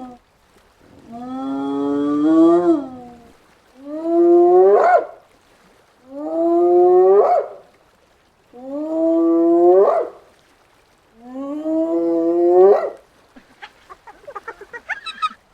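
Spotted hyena whooping: five long calls in a row, each one rising in pitch at the end, with short pauses between. Near the end the calls stop and a rapid run of short pulses follows.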